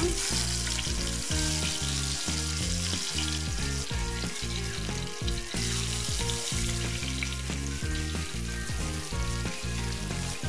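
Marinated whole taki fish (spotted snakehead) sizzling in hot oil as they are laid into the pan and begin to fry, the hiss strongest in the first five or six seconds. Background music with a steady bass line plays underneath.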